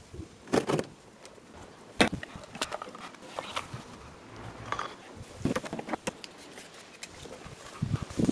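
Scattered knocks, taps and rustles from halved rubber basketball shells and lamp cable being handled on a wooden workbench, with the sharpest knock about two seconds in.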